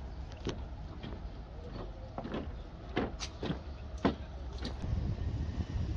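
A steady low rumble with a handful of irregular sharp knocks and clicks, the loudest a little after three seconds and again about four seconds in.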